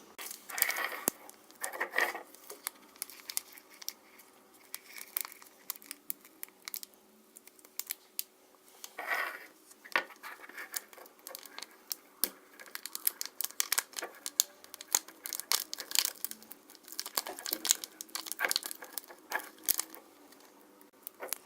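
Small packets from a DIY slime kit being torn open and crinkled by hand, with many sharp clicks and crackles and a few longer rustling tears.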